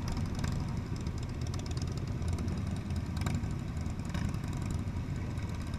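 Motorcycle engines running at low speed as a group of bikes rolls slowly along, a steady low rumble from the rider's own sport bike and those just ahead.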